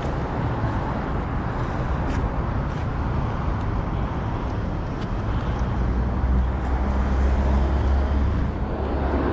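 Steady road traffic noise from a nearby street. A low engine rumble swells in the second half as a vehicle draws nearer.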